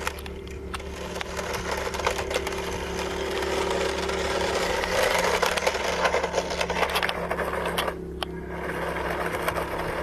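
Toy RC race car's small electric motor and gears whirring as it drives, with many small clicks over the whir. It grows louder toward the middle and then eases off.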